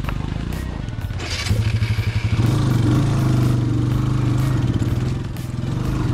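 Motorcycle engine pulling under throttle: a low, uneven beat at first, then the revs pick up about a second and a half in and hold steady, easing off briefly near the end before picking up again.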